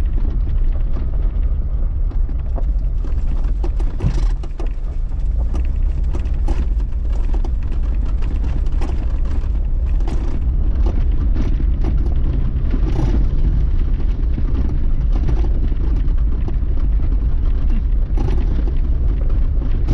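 A car driving at low speed, heard from inside: a steady low engine and road rumble with scattered light clicks and rattles.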